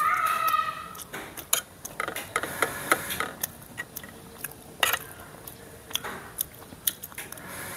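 A metal spoon clinking and scraping against a plate while someone eats: scattered sharp clicks at irregular intervals, with a few louder ones.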